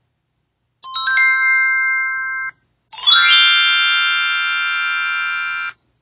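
Two short electronic chime sound effects. The first is a brief held chord about a second in. The second is a fuller, brighter chord that rings for nearly three seconds and fades slowly. Each stops abruptly.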